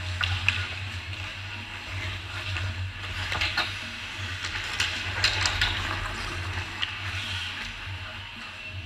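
Hockey skates scraping and hissing on the ice, with several sharp clacks of sticks and puck, most of them clustered in the middle. A steady low hum runs underneath.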